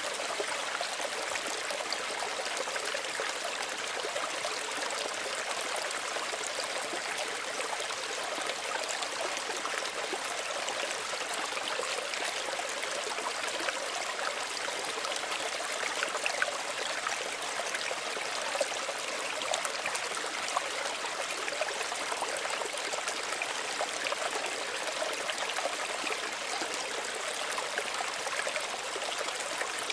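Small stream running steadily, water trickling and babbling over stones with many small splashes.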